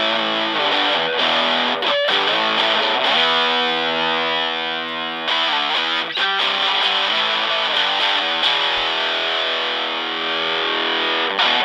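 Fender Stratocaster played through a PineTop Distortion pedal into a Fender Blues Junior amp: distorted chords strummed and left ringing, a new chord every second or few. The pedal's bass control is turned counterclockwise, taking bass out of the tone.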